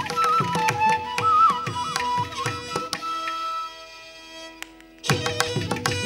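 Background music in a Carnatic classical style: a gliding melody over drum strokes. It dies away toward the middle and starts again about five seconds in.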